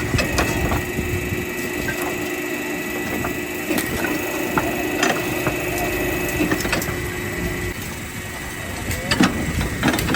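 Factory machinery running with a steady high whine and a lower hum, under scattered knocks and clatter of material being handled or crushed.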